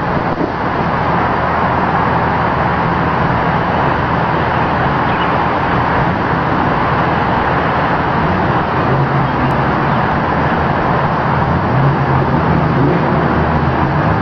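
Modified Chrysler LH sedan V6 engine running on the road, a steady loud drone with low engine tones that grow a little stronger near the end as the car comes closer.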